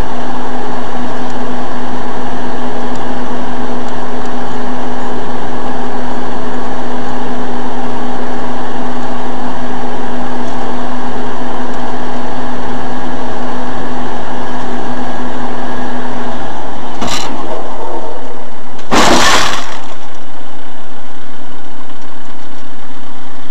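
Loud, steady drone of a car in motion, then a sharp crack about 17 seconds in and a loud crash impact about 19 seconds in: a vehicle collision.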